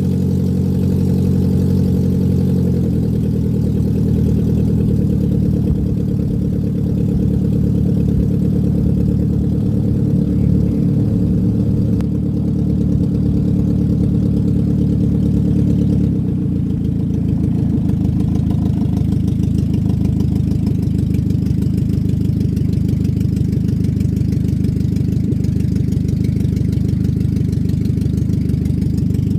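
Engine of a small river boat running steadily, heard from on board. Its note shifts a few times, at about three, five and sixteen seconds in.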